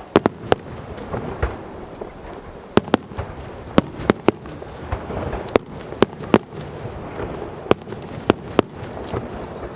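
High-altitude aerial fireworks bursting: about fifteen sharp bangs at irregular intervals, some in quick pairs, over a steady background hubbub.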